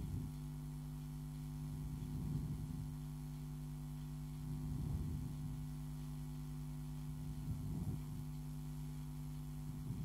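Steady electrical mains hum, with soft low swells about every two to three seconds.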